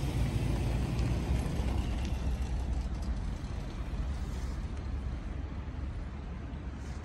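SUV engine running at low speed as it tows a travel trailer slowly past, its low hum easing off slightly as it pulls away.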